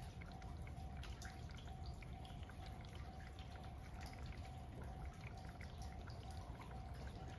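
Light rain: scattered raindrops ticking and dripping on surfaces close to the microphone. A faint tone pulses a few times a second in the background.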